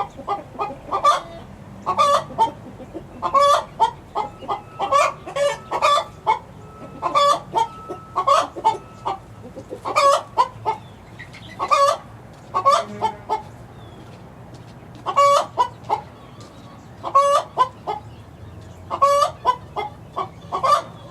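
Young six-week-old chickens calling over and over, short pitched calls coming in quick clusters every second or two.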